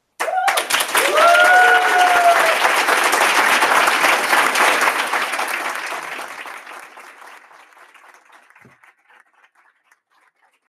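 Audience applauding at the end of a talk, starting suddenly, with a whoop from someone in the crowd a second or two in, then fading out gradually over the next several seconds.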